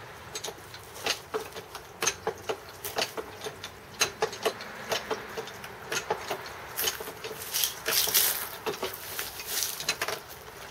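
Ratchet mechanism of a wooden basket wine press clicking irregularly as the handle is worked back and forth to press grapes.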